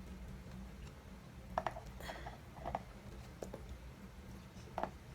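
A few light, scattered clicks and taps of small kitchen items being handled, over a faint steady low hum.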